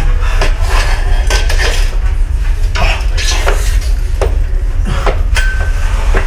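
Metallic clanks and knocks: about a dozen irregular sharp strikes, one ringing briefly a little past five seconds in, over a steady low rumble.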